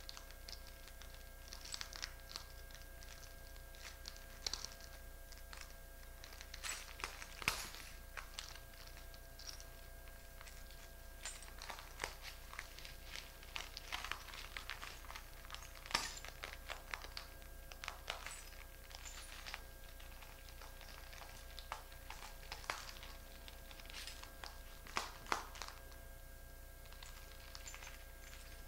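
Broken glass shards crunching and clinking under bare feet as a person steps and shifts weight on a pile of glass; faint, irregular crackles.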